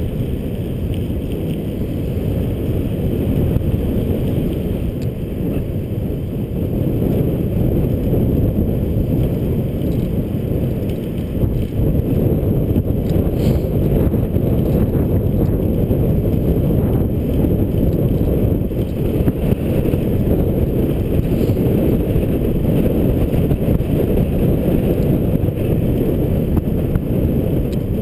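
Wind rushing over the microphone of a bicycle-mounted camera while coasting fast downhill on a bicycle, a steady low rumble.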